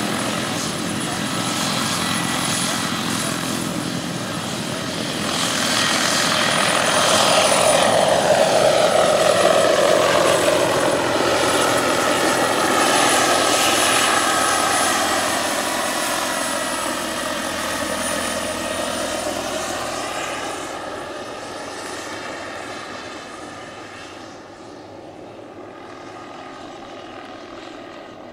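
Turbine-powered scale model H120 Colibri helicopter in flight: a steady high turbine whine over the rotor noise. It grows loudest about a third of the way in, the pitch of its rotor noise dips and rises again as it passes, then it fades steadily as it flies off into the distance.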